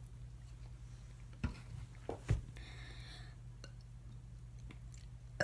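Quiet room with a low steady hum, a few soft knocks and clicks around the middle, and a short hiss just after.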